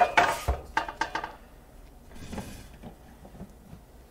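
Cookware being handled: several knocks and clatters in the first second or so, then quieter rustling.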